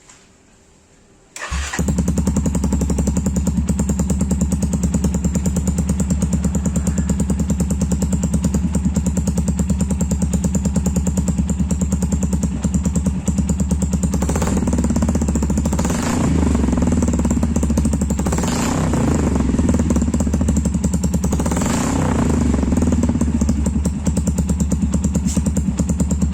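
Motorcycle engine breathing through an SC Project CRT aftermarket exhaust. It starts suddenly about a second and a half in, then settles into a steady, pulsing idle. In the second half the throttle is blipped several times, each a brief rise in revs.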